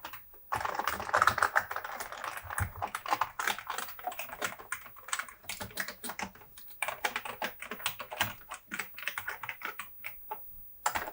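Commodore Amiga 500 keyboard being typed on, key after key pressed in quick succession to test each key, with a few short pauses.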